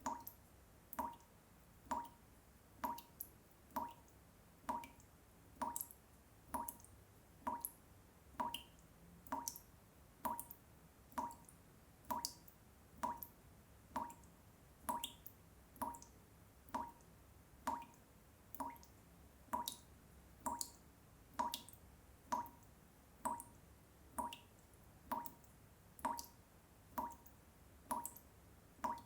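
Water dripping from a sink tap: single drops falling in an even rhythm, a little faster than one a second, each a short plink with a clear pitch.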